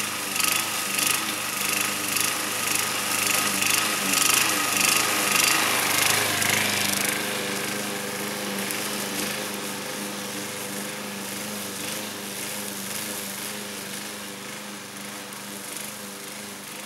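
Alpina BL 510 petrol push mower running and cutting tall, dry grass, its engine note pulsing roughly under the load. About seven seconds in it settles into a steadier engine tone and grows gradually fainter as the mower moves away.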